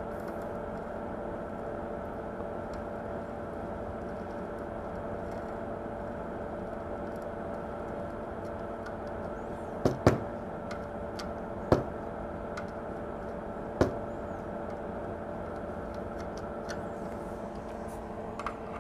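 Steady machine hum made of several steady tones, with three sharp clicks about 10, 12 and 14 seconds in.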